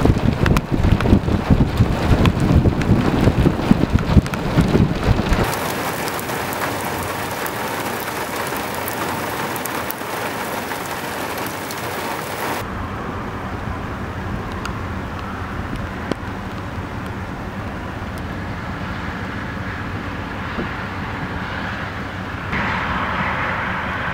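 Thunderstorm audio from several clips cut together. A loud, pulsing low rumble runs for about the first five seconds, then steady heavy rain falls for the rest, and its hiss changes in tone at each cut.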